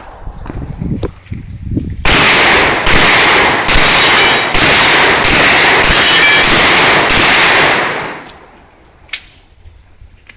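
A string of about eight gunshots fired a little under a second apart, each one loud and ringing on into the next. After them the shooting stops, and one more sharp crack follows about a second later.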